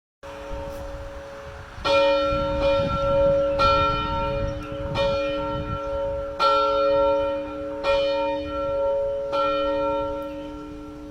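Church bell being rung: six clapper strokes about a second and a half apart, each one ringing on and humming under the next.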